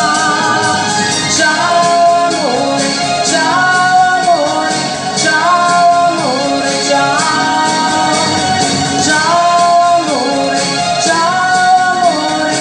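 Woman singing into a microphone over a recorded backing track of Italian pop music. The melody repeats a falling phrase about every two and a half seconds.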